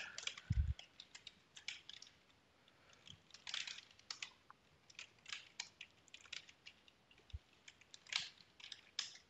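Computer keyboard typing: irregular key clicks in short runs with brief pauses, and a soft low thud about half a second in.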